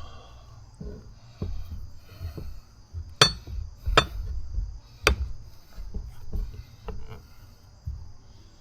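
Sharp clicks and knocks of tools and tire working against a scooter wheel rim as a tire bead is levered on by hand, the three loudest about three, four and five seconds in, with lighter taps between.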